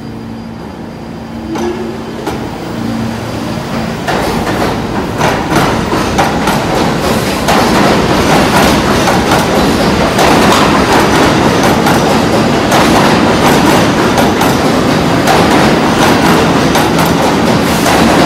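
New York City subway train pulling out and gathering speed, its rumble growing steadily louder as the wheels clack over the rail joints.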